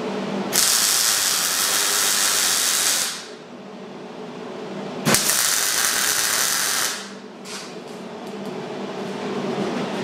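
MIG welder laying tack welds on a steel spring mount on an axle casing: a loud crackling hiss for about two and a half seconds, then a second burst about five seconds in that starts with a sharp click and lasts about two seconds.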